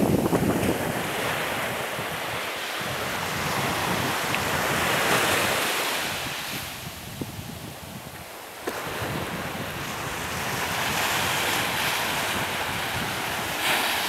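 Small waves washing up on a sandy beach, the hiss of the surf swelling and fading, with a lull a little past halfway. Wind buffets the microphone, most strongly near the start.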